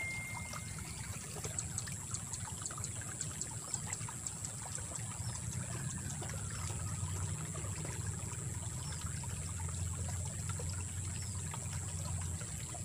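Water trickling in a small ditch, over a steady high-pitched whine, with a run of faint ticks in the first half.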